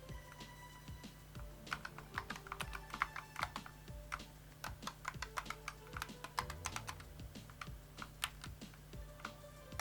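Typing on an A4Tech Bloody B950 RGB gaming keyboard with Bloody LK Libra optical switches: quick, uneven runs of keystroke clicks, with faint background music under them.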